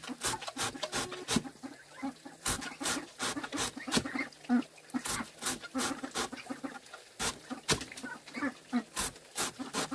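Farm animals calling in short, low clucks or bleats, among many irregular sharp clicks or taps.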